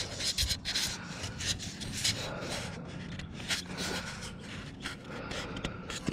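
Irregular rubbing and scraping close to the microphone, from hands handling the camera.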